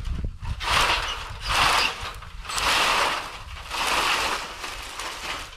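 An old wooden gate being dragged out of dry brush and over dirt, scraping and crackling in repeated pulls about a second apart.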